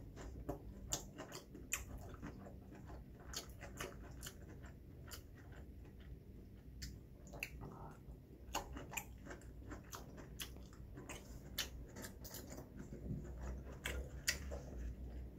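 A person chewing kimchi: many short, crisp crunches and mouth clicks, a few each second.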